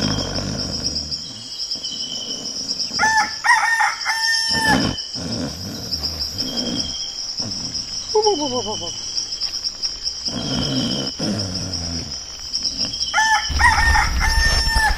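A rooster crowing twice, about three seconds in and again near the end, each crow a few short notes ending in a long held note, over the steady high chirring of crickets.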